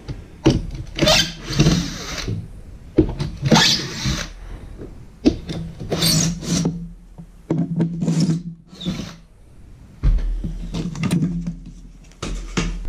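Cordless drill backing screws out of floorboards in short runs, mixed with knocks and scrapes of loose wooden board pieces being handled and lifted out.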